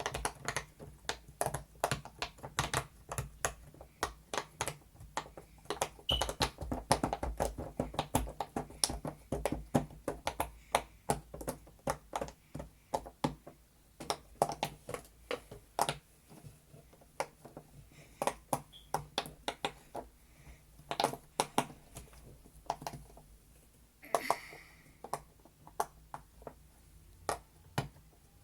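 Bubbles of a large silicone pop-it fidget toy being pressed one after another: a steady run of short popping clicks, several a second, bunching up more densely for a few seconds near the start.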